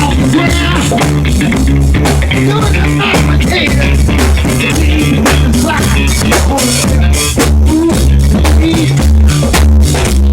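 Funk groove with a steady beat, a repeating bass line and drum- and guitar-like sounds.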